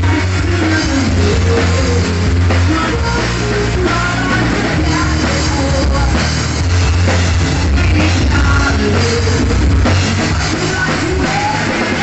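Live rock band playing: a drum kit and electric guitar with a singer over them.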